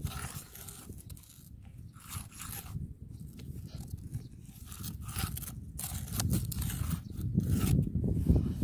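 A thin stick scraping and poking into dry, sandy soil while a crab burrow is dug out, with crunching of dirt and dry grass in short irregular strokes. A low rumble grows louder in the second half.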